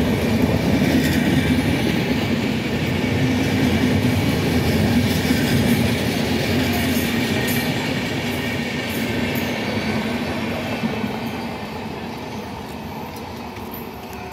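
Sabarmati Express passenger coaches running past at speed, a steady rumble with wheels clattering on the rails, dying away over the last few seconds as the end of the train goes by and recedes.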